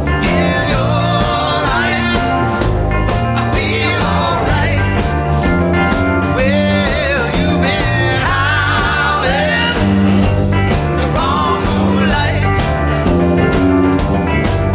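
Rock band playing live, with drums, bass, guitars and keys, and a bending, wavering lead line over the top.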